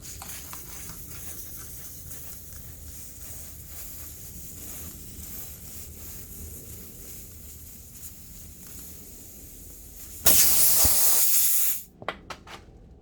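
A loud hiss lasting about a second and a half, then three short hisses, over a fainter steady hiss.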